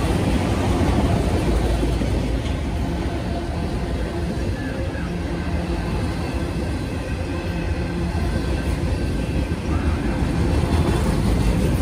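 Freight train of enclosed autorack cars rolling past, its steel wheels on the rails making a steady low rumble.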